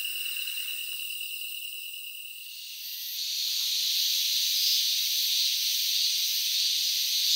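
Night insects chirring with a steady high tone, giving way about three seconds in to a louder, even, hissing insect chorus.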